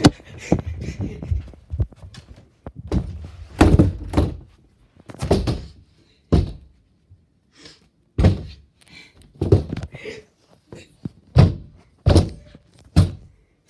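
Someone banging on a shut bedroom door from outside: a series of heavy thuds, irregular, about one a second.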